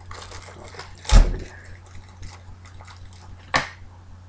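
Hands handling small knife-kit parts and their packaging, with a low thump about a second in and a sharp click about three and a half seconds in.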